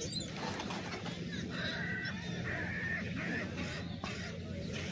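Seagulls calling: a few short calls and two longer, level-pitched calls about two seconds in, over a steady low hum.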